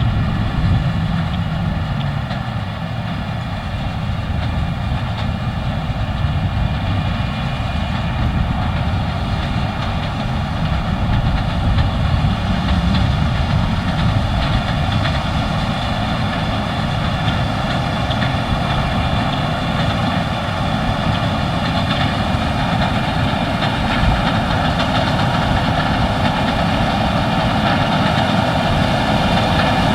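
Case IH 6160 Axial-Flow combine running steadily while harvesting wheat: a constant machine drone with several steady whining tones above it.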